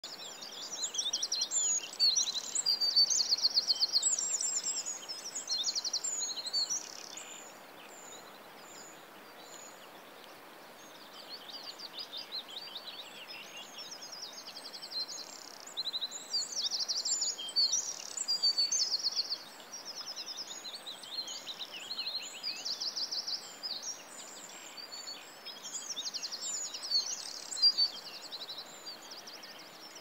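Several small songbirds singing rapid, high-pitched trills and chirps that overlap one another, coming in spells with short lulls, over a faint steady hiss.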